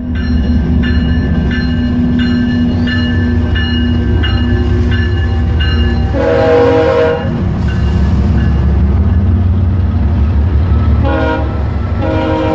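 BNSF diesel freight locomotives passing close by with a heavy engine rumble. A locomotive bell rings about twice a second through the first half. The air horn gives a short blast about halfway through, a brief toot near the end, and starts another blast just before the end.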